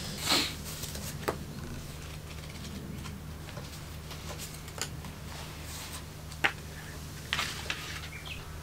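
Paper handling at a wooden table: a spiral notebook opened and pressed flat, then a paperback book picked up and its pages leafed through. A rustle right at the start, a few sharp taps spread through, and a flurry of page rustles near the end, over a steady low hum.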